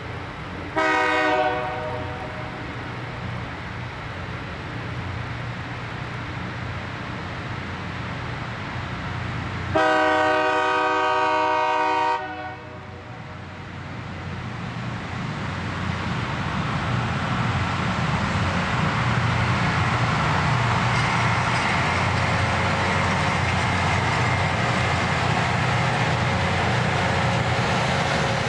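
Loram rail grinder's horn sounding a short blast about a second in and a long blast near the middle, over the steady running of the machine, which grows louder as it draws near.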